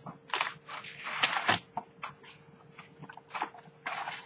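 Packaging being handled: a foam insert lifted and pulled out of a stiff cardboard box, giving scraping and rustling in a few short bouts with light knocks, the busiest stretch about a second in and another just before the end.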